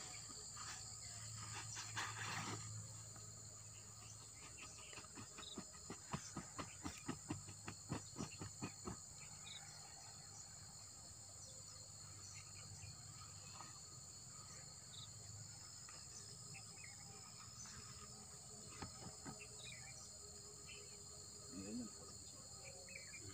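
Steady high-pitched shrilling of insects. About six seconds in, a run of sharp clicks or taps comes at roughly four a second for about three seconds, the loudest sounds here, after a short rustle earlier on.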